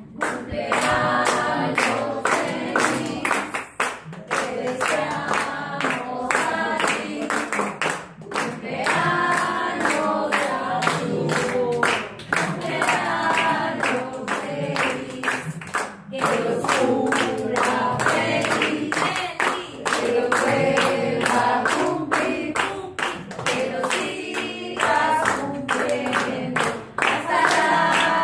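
A group of adults singing a birthday song together in Spanish and clapping along in rhythm.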